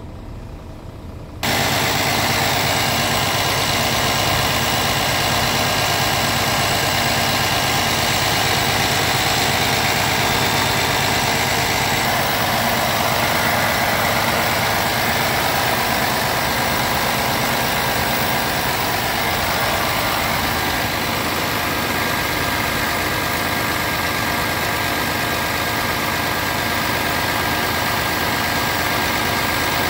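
Scania R 410 Euro 6 truck's 13-litre inline-six diesel idling steadily, heard close up in the open engine bay under the tilted cab. For about the first second and a half it is fainter, heard from inside the cab, and then it turns suddenly louder.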